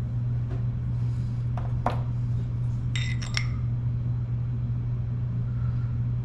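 Metal parts clinking together a few times, with a small cluster of ringing clinks about three seconds in, over a steady low hum.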